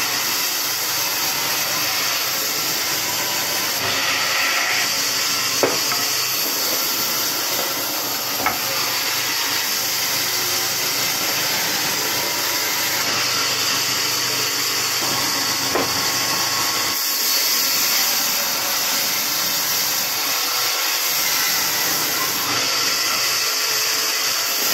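Band saw running and ripping a wooden block into slats: a steady high hiss of the blade cutting through the wood. Two short sharp knocks come about six and eight seconds in.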